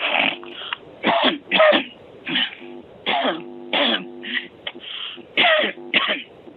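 A person coughing and clearing their throat over a telephone line: about a dozen short, harsh coughs in quick succession.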